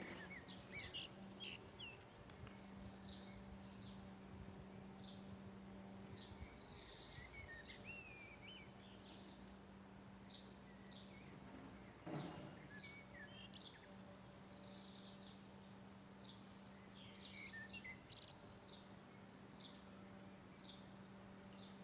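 Faint chirping of several small birds: many short chirps and a few quick whistled notes, over a steady low hum. One brief thump about halfway through is the loudest moment.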